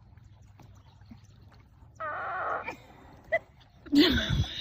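A person's gas noises: a short, pitched, buzzy one about two seconds in, then a louder, lower one with a falling pitch near the end.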